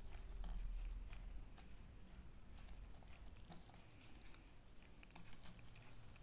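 Faint crackling of crushed potato chips and light clicks as a metal fork presses through the chip-topped fried patty and egg on a plate. A low rumble comes in the first second.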